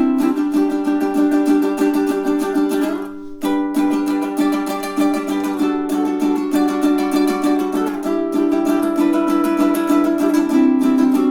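Magic Fluke M20 tenor ukulele in re-entrant baritone tuning (dGBE with a high D, Living Water strings) strummed in chords, with a short break about three seconds in.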